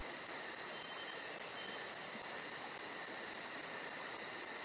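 Insect chorus: a steady high buzzing, with a faster, higher trill pulsing about five times a second.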